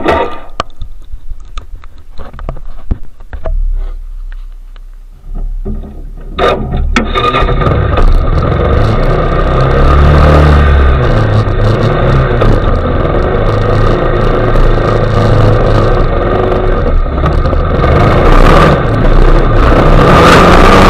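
ATV engine running low and quiet with scattered clicks and knocks for the first few seconds. About six and a half seconds in it picks up and runs loud as the quad drives, its pitch rising and falling with the throttle, while the front tyre churns through wet leaves and mud.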